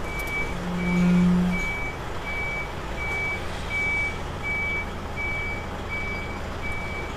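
Lorry's reversing alarm beeping, one high tone repeating evenly about one and a half times a second, over a low engine rumble as the truck backs up slowly. A low steady hum sounds for about a second near the start.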